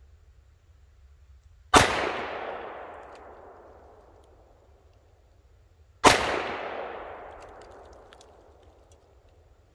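Two shots from a Ruger Super Redhawk .44 Magnum revolver firing full-power 240-grain loads, about four seconds apart. Each sharp report rings out in a long echo that fades over two to three seconds.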